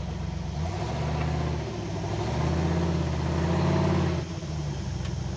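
Off-road race vehicle's engine working under load, the revs rising and falling unevenly, loudest about three to four seconds in, then easing off suddenly.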